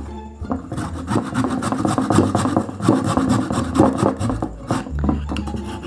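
A block of frozen beef grated by hand on a stainless-steel cheese grater in a plastic bowl: rapid, repeated scraping strokes, one after another.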